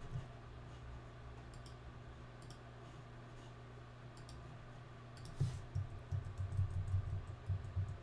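Computer mouse clicks and keyboard keystrokes over a faint steady low hum. A few scattered clicks come first, then a denser run of tapping from about five seconds in.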